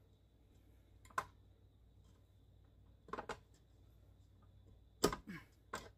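A few light metal clinks and knocks from handling a KitchenAid stand mixer's flat beater and stainless steel bowl, with the loudest knock about five seconds in.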